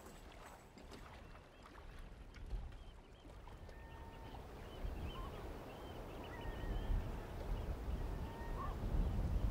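Faint, scattered calls of waterbirds, several short held or wavering notes, over a low rumble that grows louder toward the end.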